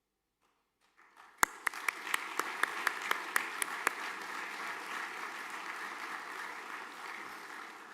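Audience applauding, starting about a second in, with a few loud close claps in the first three seconds, then fading slightly near the end.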